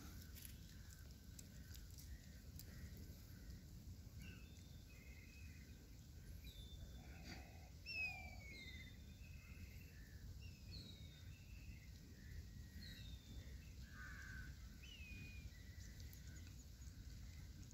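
Faint outdoor ambience: scattered short, falling bird chirps over a low steady rumble, with one brief louder sound about eight seconds in.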